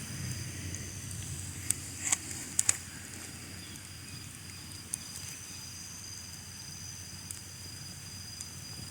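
Night insects, crickets, trilling steadily at a high pitch, over a low rumble, with a few sharp clicks in the first few seconds.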